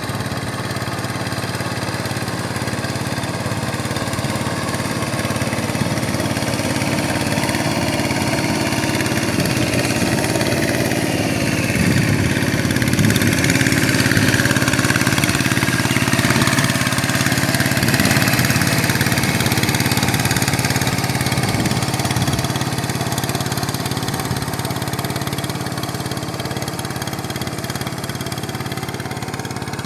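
Two-wheel hand tractor's single-cylinder diesel engine running steadily as it works a flooded rice paddy. It grows louder through the middle as the tractor passes close by, then fades as it moves away.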